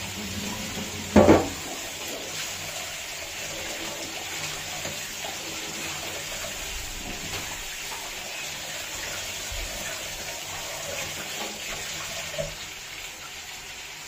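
Kitchen tap running into a steel sink while chicken pieces are rinsed in a steel bowl under the stream, with one loud knock about a second in. The water stops near the end.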